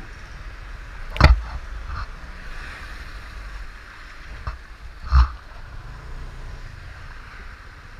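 Steady rushing of rain and wet-road spray around a slow-moving motorbike, with a low rumble underneath. Two brief loud thumps break through, about a second in and about five seconds in.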